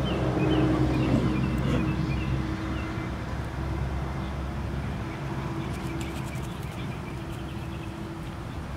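Outdoor ambience dominated by a steady, low mechanical hum like a running engine, with birds chirping repeatedly over the first couple of seconds.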